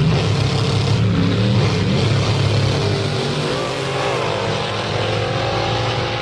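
Drag race car engine running with a low rumble, its note rising and falling about halfway through.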